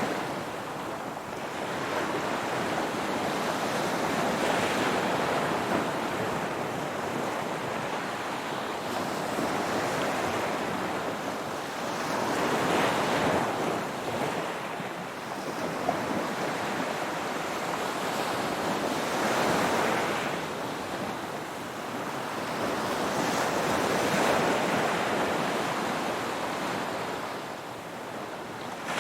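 Ocean waves breaking as a continuous wash of surf, swelling and fading as each wave comes in, about every five to eight seconds.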